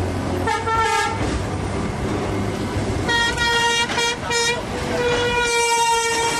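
A vehicle horn sounding over street noise: one blast about half a second in, three short quick toots around the middle, then a long held blast near the end.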